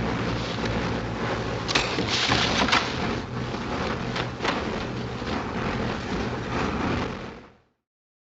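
Steady drone of a Wellington bomber's engines with a rushing wind noise, and a few knocks and clatters about two seconds in. The sound cuts off suddenly about seven and a half seconds in.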